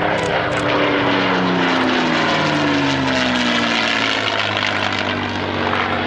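A P-51D Mustang's Packard-built Merlin V12 engine and propeller on a display fly-past, with a whistle that comes from the oil cooler scoop under the fuselage. The engine note and the whistle fall in pitch as the aircraft passes.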